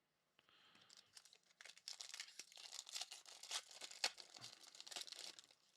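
Faint crinkling and tearing of a trading-card pack wrapper as a pack is ripped open, with the crackle thickening in the middle and stopping just before the end.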